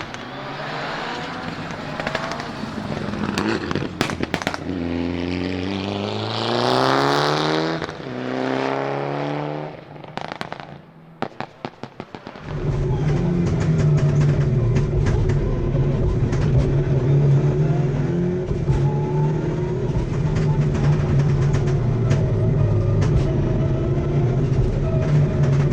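Mitsubishi Lancer Evo VI rally car's turbocharged 2.0-litre four-cylinder, heard from inside the cabin, revving up and falling back repeatedly through the gears, with a few sharp cracks. Around ten seconds in it drops off throttle into a run of sharp pops and bangs from the anti-lag misfiring system. Then, from about twelve seconds in, it settles into a steady loud drone with frequent crackles.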